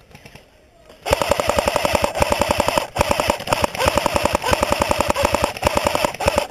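Cyma AK74M electric airsoft rifle firing on full auto: a rapid, even clatter of shots over the whine of its motor and gearbox, starting about a second in, in two long bursts with a short break about three seconds in.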